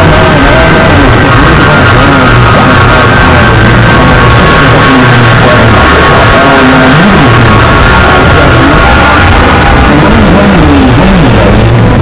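Loud music track, dense and continuous, with a wavering melody line.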